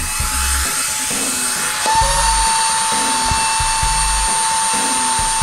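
Suction fan (vacuum motor) of an Air Hogs zero-gravity RC light cycle running with a steady whirring hiss as the toy clings to a ceiling. A steady whine joins about two seconds in, with short low rumbles now and then.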